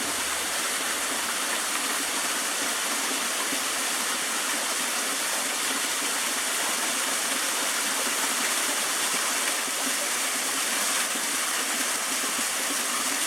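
Cascading waterfall with a modest flow of water coming down, a steady, even rush of falling water.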